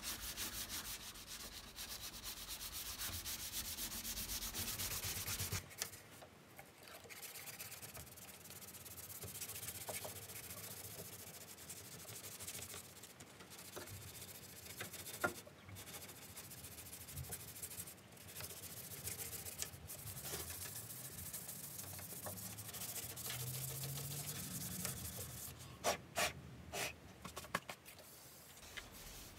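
Hand sanding of body filler on a classic Mini's rear panel with 320-grit paper on a sanding block. Quick, even back-and-forth strokes for the first five seconds or so, then lighter, sparser rubbing, with a few sharper strokes near the end.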